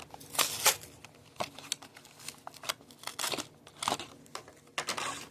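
Hot Wheels blister pack being opened: stiff plastic bubble and cardboard card crinkling and tearing in short, irregular bursts.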